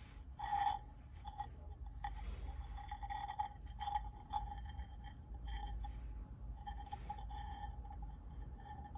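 Beadwork made of small seed beads being turned in the hands: soft, irregular clicks and rustles as the beaded triangles rotate against each other. A faint steady high tone runs underneath and grows louder with each click.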